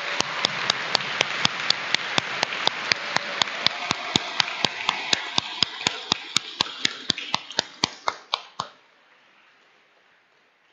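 Crowd applause, with one person's hand claps right at the microphone standing out as sharp, loud claps at about four a second. The applause thins and both stop about nine seconds in, leaving a short fading echo in the cathedral.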